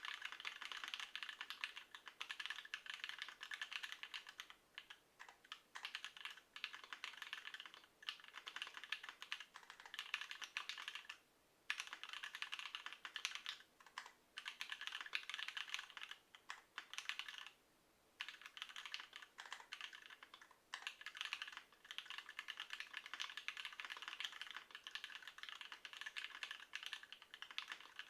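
Fast, steady typing on a Tofu60 mechanical keyboard with stock JWICK Yellow linear switches, XMI Desko keycaps, a 5mm acrylic plate and case foam. The keystrokes come in dense runs of light clacks, broken by short pauses a few times.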